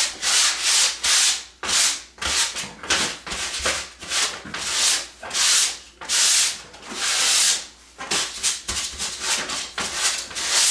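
Light sanding of a primed drywall ceiling repair, in quick back-and-forth strokes about two a second, knocking down burrs on the dried stain-blocking primer before it is taped.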